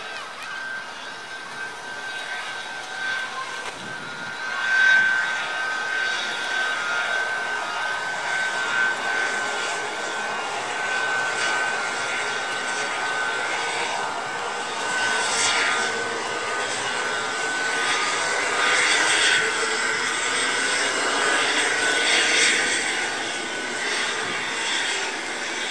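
M55 Geophysica's twin turbofan engines running at low power as the jet rolls out along the runway after landing: a steady high whine over a wide rushing noise. The whine fades out a little after halfway, while the rushing noise swells again.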